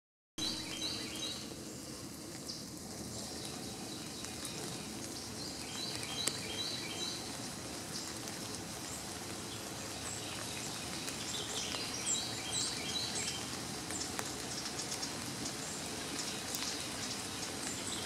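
Small songbirds calling in the trees, short high chirps coming in quick runs of three or four several times, over a steady outdoor hiss.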